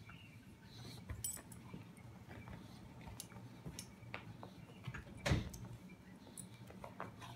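Soft movement noises from a pug squirming on carpet and a child shifting in a blanket: scattered small clicks and rustles, with one louder knock about five seconds in.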